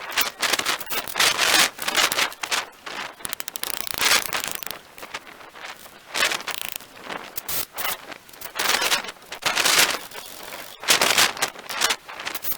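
Irregular scraping and rustling noises of hand work on wooden handrail posts, a burst every second or so with uneven gaps.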